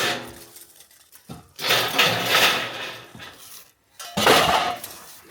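Scrap metal pieces clattering and clanging as they are thrown onto a pile: a clang at the start that rings on briefly, a longer run of clatter through the middle, and another clash near the end.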